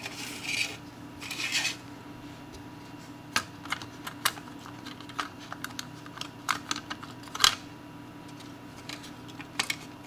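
Plastic shell of a Logitech M570 trackball being handled and fitted together: a couple of brief scrapes near the start, then a string of sharp plastic clicks and taps, the loudest a little past the middle.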